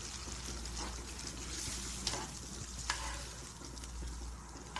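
Tomato and onion sauce, with water just added, simmering and sizzling in a frying pan while a metal spoon stirs it, clicking lightly against the pan a few times.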